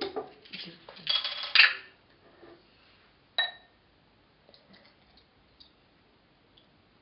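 A beer being opened: a short burst of hiss and scraping that ends in a sharp click about a second and a half in, then a single ringing metallic clink a couple of seconds later, followed by a few faint small clicks.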